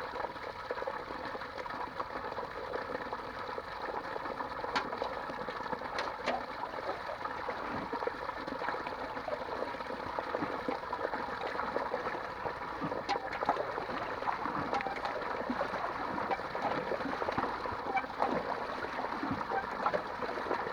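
Water running and gurgling steadily, with a few light clicks, about five and six seconds in and again near thirteen seconds.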